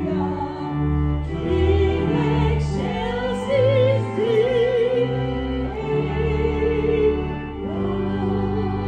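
A woman singing a hymn solo with a wide vibrato, over sustained accompanying chords. Near the end the voice gives way to a newly struck chord that is held.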